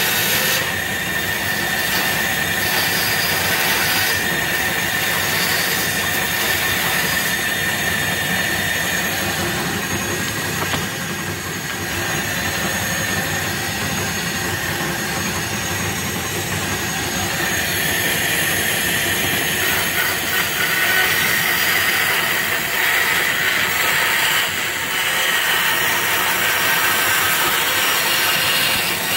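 Band saw running steadily, its blade cutting through wood stock fed by hand, with a high-pitched whine in the first half that gives way to a brighter cutting noise after about halfway.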